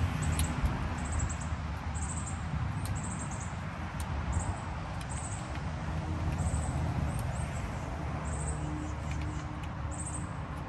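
Outdoor ambience: a low, fluctuating wind rumble on the microphone, with birds chirping in short high calls repeated every second or so and a few light clicks from handling.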